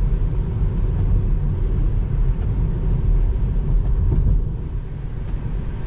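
Steady low rumble of tyre and road noise inside a Tesla Model 3's cabin, driving on a rain-soaked highway at about 45 mph. It eases slightly about four and a half seconds in.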